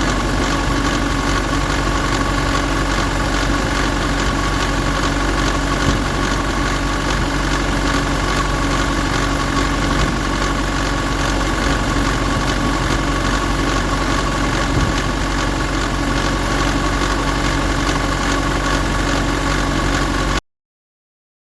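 Warm Nissan Pathfinder 2.5 dCi four-cylinder turbodiesel running steadily, carrying an unidentified engine noise that the owner says lessens once warm but is still present. It cuts off suddenly near the end.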